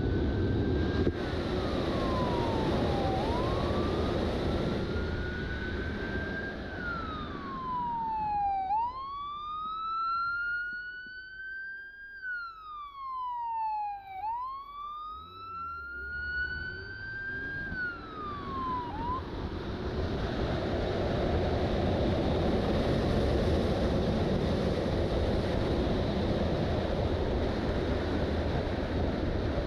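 Police motorcycle siren wailing, its pitch sweeping slowly up and down, each rise taking about three seconds and each fall about two, over wind rush on the microphone. The wind drops away in the middle, and the siren cuts off about 19 seconds in, leaving wind and road noise.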